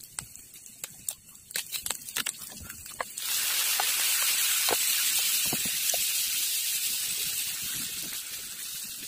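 Fish roe frying in a hot nonstick pan, with scattered light crackles. About three seconds in, sauce is poured into the pan and a loud sizzle starts suddenly, then slowly fades.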